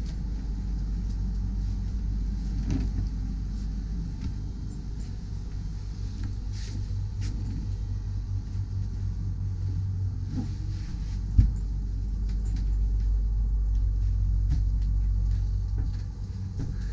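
Steady low machinery rumble inside a motor catamaran's cabin, with a few faint clicks and one sharp knock about eleven seconds in.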